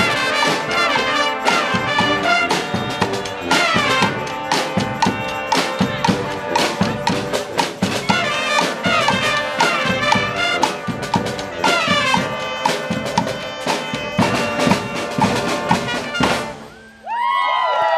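Street brass band playing, with trumpets, trombones and drums over a steady beat. The music stops about a second and a half before the end, and a loud pitched sound sliding up and down starts just after.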